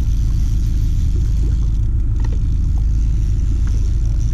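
A motor running steadily with a loud low rumble, with a few faint clicks over it.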